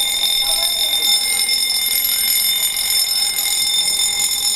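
Building fire alarm sounding during an evacuation drill: a loud, steady, high-pitched electronic tone with several overtones, unbroken throughout.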